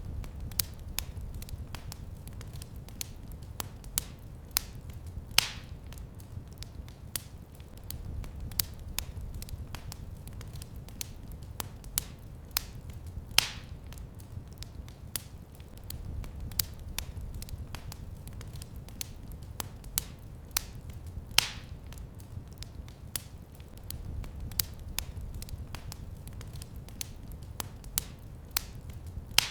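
Wood fire in a fireplace crackling, with many small sharp pops over a low rumble of the flames that swells and eases every few seconds. Three louder pops stand out, about eight seconds apart.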